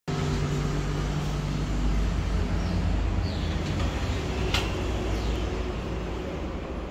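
Steady low rumble of background noise, with a single sharp metallic click a little over halfway through as the lever handle and latch of a metal security gate are worked.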